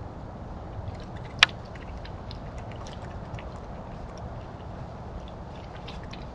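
Trail-camera outdoor recording: a steady low rumble and hiss with faint scattered clicks and ticks, and one sharp loud click about a second and a half in.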